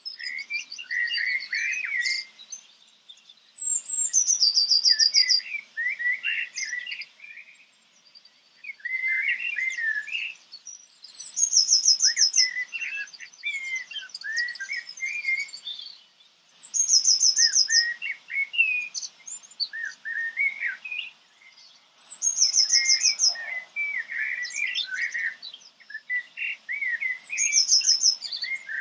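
Songbirds singing: one bird repeats a short song about every five or six seconds, starting high and ending in a fast, even trill, with quieter warbling notes from other birds in between.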